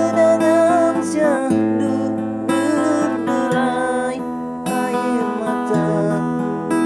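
Strummed acoustic guitar playing an instrumental passage of a song, with a melody line above and the bass changing chord every second or two.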